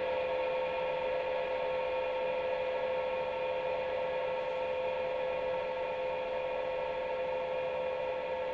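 Sustained ambient music drone: a chord of steady held tones that does not change, its lower notes having just dropped away.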